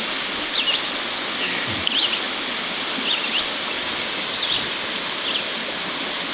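Creek water rushing steadily, with short high chirps scattered over it.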